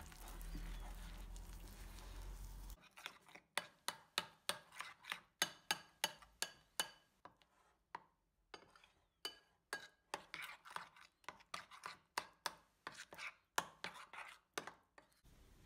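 Metal spoon stirring and beating thick gram-flour batter in a glass bowl, clicking against the bowl in a quick irregular run of about two to three clicks a second. The clicks begin about three seconds in, after a faint steady hum.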